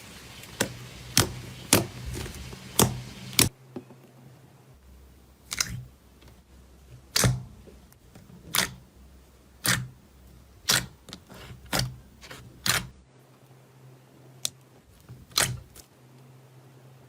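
Slime being pressed and poked, giving sharp popping clicks. They come quickly at first, then about one a second.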